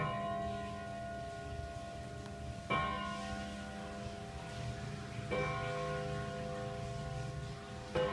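Antique Kienzle Westminster-chime wall clock striking the hour. Four gong strokes fall about two and a half seconds apart, and each rings on into the next.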